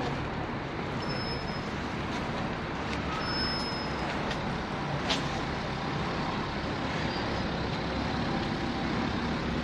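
City street traffic: a steady rumble of passing cars and buses with tyre noise. Two brief high-pitched squeaks and one sharp click about halfway through.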